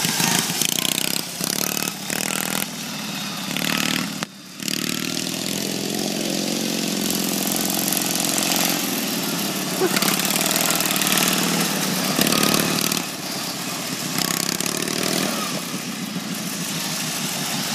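Racing lawn mower engine running through straight-piped car exhausts as the mower drives past and away, its note rising and falling with the throttle.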